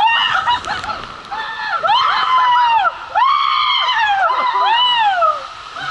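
Water slide riders screaming and whooping in a run of long, high shrieks, each rising and falling in pitch, several voices overlapping.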